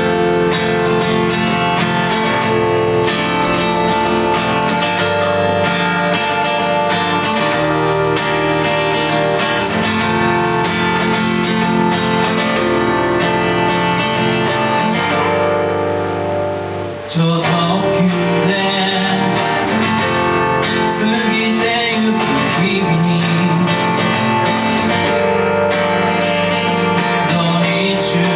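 Live acoustic guitar strummed with a Yamaha keyboard playing along. The music thins out briefly a little past halfway, then comes back in fuller.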